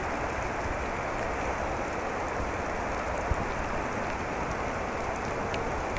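Steady pouring rain, an even hiss of rain falling on surfaces with a few sharper drop ticks.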